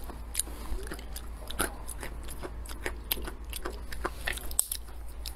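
Close-up chewing of macadamia nuts: a run of sharp, irregular crunches and clicks.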